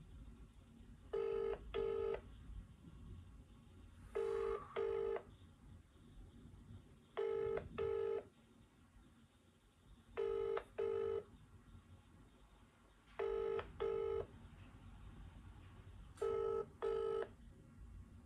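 British telephone ringback tone of an outgoing call that has not been answered: a double ring, two short beeps, repeating every three seconds, six times.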